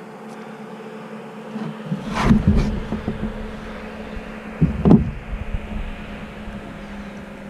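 A steady low hum runs throughout. Clusters of knocks and thumps come about two seconds in and again about five seconds in.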